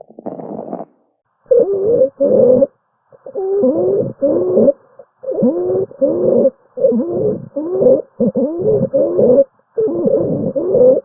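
Recorded lung sounds with musical wheezing: about six pairs of short, pitched, gliding wheezes with brief silences between, each breath carrying several tones at once, as in a polyphonic wheeze from narrowed airways.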